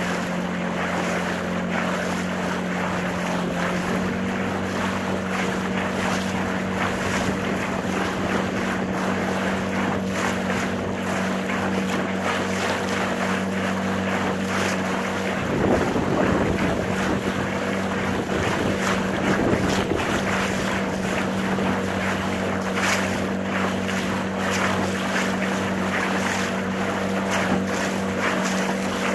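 A small boat's motor running at a steady pitch while under way, with water rushing past the hull and wind buffeting the microphone. Two louder whooshes come about halfway through.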